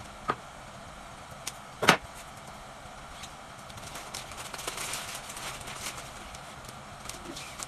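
Two sharp knocks in the first two seconds, the second much louder, then bouquet wrapping paper crinkling and rustling for a couple of seconds as it is folded around the flowers and gathered with a ribbon.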